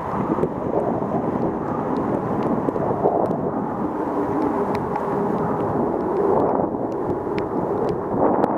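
Wind buffeting the microphone of a camera on a moving bicycle, a steady rumbling rush, with scattered small clicks and rattles from the bike over wet brick paving.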